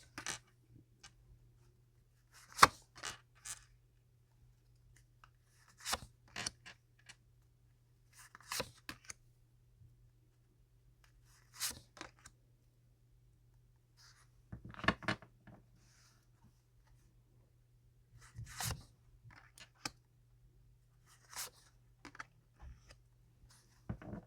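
Tarot cards being handled on a table: short bursts of card flicks, snaps and taps every few seconds.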